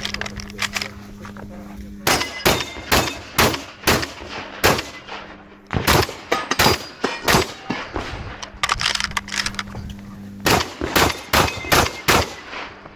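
Semi-automatic 12-gauge shotgun, a Beretta 1301 Comp Pro, fired fast in short strings of two to five shots, about twenty shots in all, with brief pauses between strings; it starts about two seconds in.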